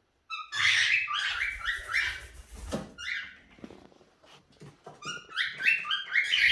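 A pet parrot calling in runs of short, pitched chirping notes, one run about half a second in and another near the end, over a low rumble.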